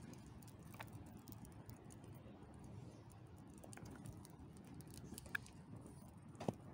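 Faint crackling of a burning cardboard model, with scattered small clicks and a few sharper pops, the loudest near the end, over a low steady outdoor rumble.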